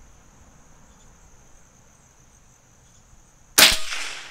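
Crickets chirring steadily, then about three and a half seconds in a single very, very loud shot from a Hatsan Flash .22 PCP air rifle firing a very light 3D-printed steel-core pellet. The report tails off over most of a second.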